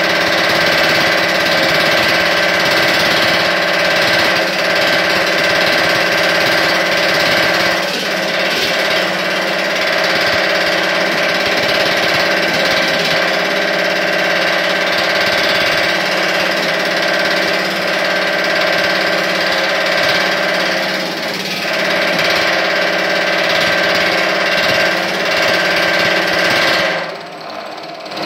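Whiting Quickwork power hammer running, its ram hammering rapidly and continuously on 16 gauge sheet metal as the metal is worked between the dies. The hammering drops off briefly near the end.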